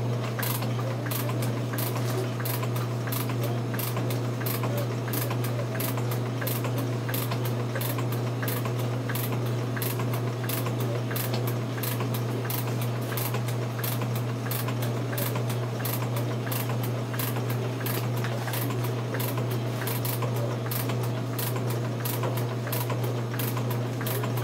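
Metal shaper running, its ram going back and forth as the tool takes a light finishing cut of two thousandths of an inch across an aluminum block. A steady motor hum lies under a regular, even clicking that repeats with the strokes.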